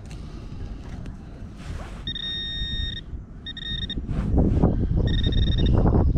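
Metal detector sounding a steady high beep in short stretches of about a second or less, on and off, as it is held over the target in the dug soil. From about four seconds in, loud scraping and rustling of dirt being dug and handled.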